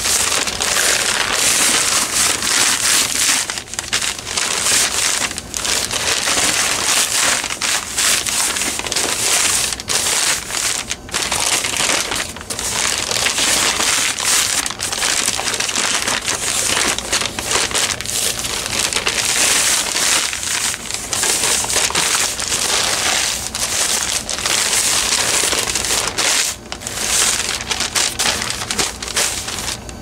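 Packing paper crinkling and crumpling continuously as it is handled, with only brief pauses.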